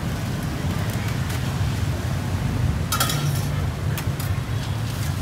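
Busy street-market ambience: a steady low rumble of traffic and crowd, with a few sharp metallic clinks from the stall, the loudest about three seconds in.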